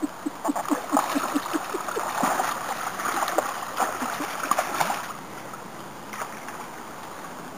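River otters: a quick run of short low calls, about five a second, for the first couple of seconds, then splashing and water noise as they move through the pool, dying away about five seconds in.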